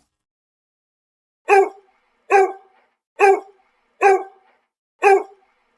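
Dog barking: five short, evenly spaced barks, about one a second, starting about a second and a half in.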